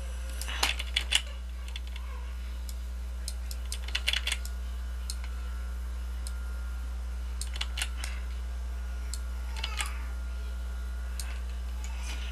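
Computer keyboard keys clicking in short clusters of a few presses, a few seconds apart, over a steady low hum.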